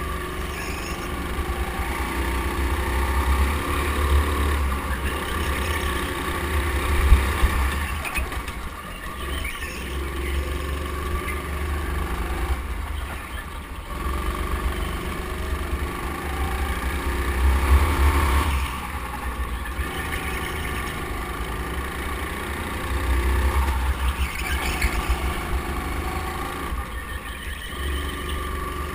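Go-kart running at racing speed on a track, its motor noise swelling and easing every few seconds as it powers through and out of corners, with a low rumble underneath.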